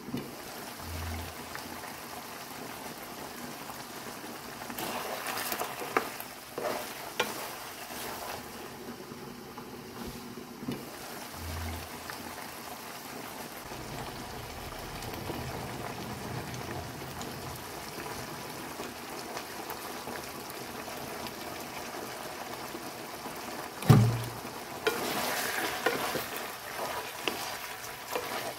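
Pork hocks simmering and sizzling in their braising sauce in a nonstick wok, with a few light clinks. A sharp knock sounds a few seconds before the end, then a spatula stirring and scraping through the pan.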